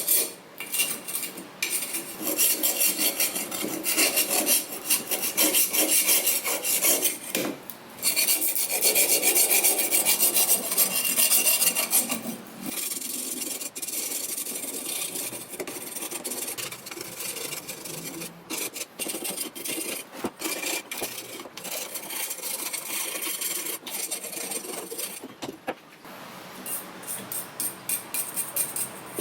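Hand scraping and rasping strokes on the metal of a gas-cylinder roller stand during its restoration, fast and uneven, in bursts with short pauses. Near the end a steel wire brush scrubs the metal.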